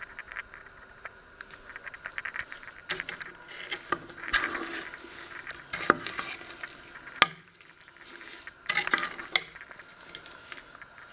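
A metal spoon stirring halved plums and sugar in a stainless steel pot, with irregular scraping and a few sharp clinks of the spoon against the pot.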